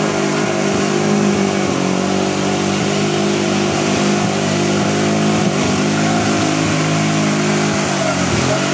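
Yamaha Raptor 660R ATV's single-cylinder four-stroke engine running at a steady mid-range speed, with small rises and dips in revs.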